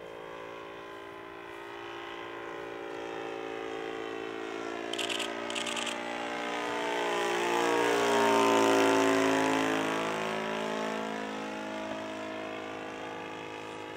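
Saito FG-21 20 cc four-stroke petrol engine of a 1:6 scale radio-controlled Fieseler Storch model running in flight as the plane makes a pass. The engine note grows louder, peaks about eight seconds in, drops in pitch as the model goes by, then fades.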